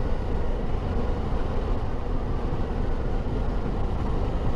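KTM adventure motorcycle being ridden along the road: steady engine and wind rush with no changes.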